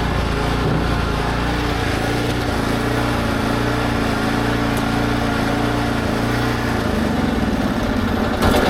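Small engine of a Kubota SPJ400 walk-behind rice transplanter running steadily, with a short louder burst near the end.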